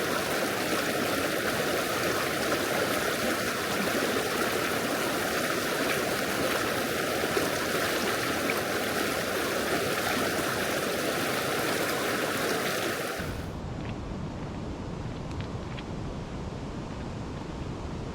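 Flowing river water, a steady even rushing hiss. About thirteen seconds in it cuts abruptly to a quieter, duller rush with more low rumble.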